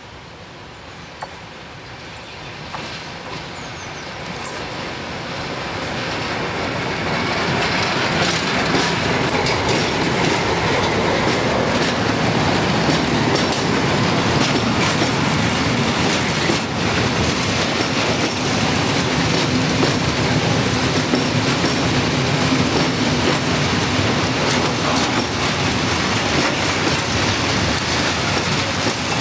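A class 740 (T448.0) diesel locomotive approaches with a loaded freight train of hopper wagons and passes, growing louder over the first several seconds. Its wagons then roll steadily past close by, their wheels clacking rhythmically over the rail joints.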